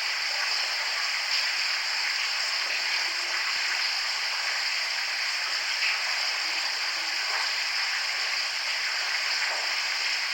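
Steady, even hiss with no speech.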